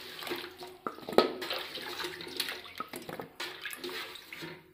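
Water sloshing and splashing as a hand lifts pieces of ash gourd out of a pot of lime water into a steel bowl. A couple of sharp knocks come about a second in.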